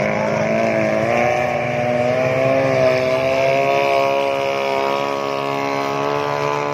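Racing speedboat's engine running at high revs at speed, a steady high drone whose pitch wavers slightly.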